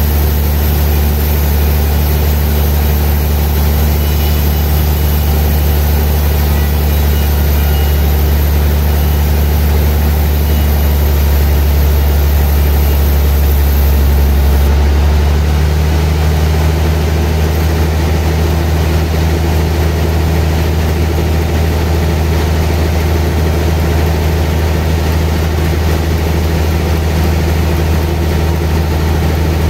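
Large sawmill band saw running steadily as it saws through a big trembesi (rain tree) log: a loud, even, low hum with no breaks. The hum shifts slightly about halfway through.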